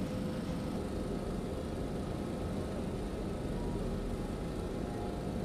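Steady low rumble of a large ship's machinery, with faint steady hum tones above it.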